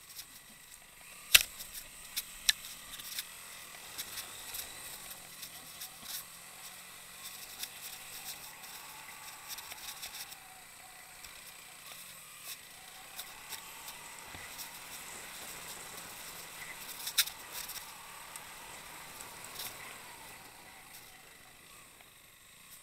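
Motorcycle engine running at low revs at a slow riding pace, with scattered sharp knocks and rattles as the bike jolts over the rough dirt track; the loudest knocks come about a second and a half in and again near 17 seconds.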